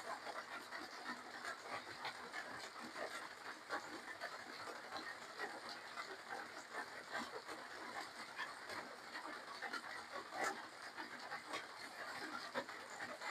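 Close-up eating sounds: wet chewing, lip-smacking and slurping of spicy seafood papaya salad with rice noodles, a steady run of small clicks and smacks.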